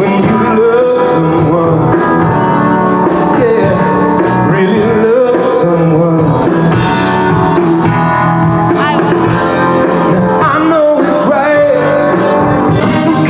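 Rock/pop song with a singing voice over guitar and band backing.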